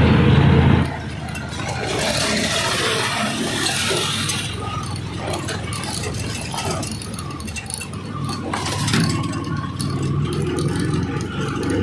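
Auto-rickshaw on the move, heard from inside the open passenger compartment: its small engine running, with the body rattling and road noise. The engine is loudest for about the first second.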